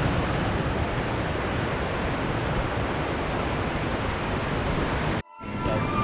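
Steady rushing of the Niagara River's white-water rapids, an even wash of noise that cuts off suddenly about five seconds in.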